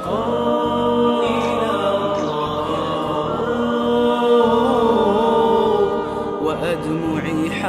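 Background Arabic nasheed (devotional song): layered voices holding long, wavering notes without words.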